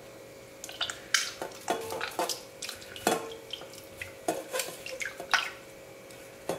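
A hand squeezing and mashing a boiled, peeled tomato into tamarind water in a steel pot: irregular wet squelches and splashes, starting about half a second in and stopping near the end.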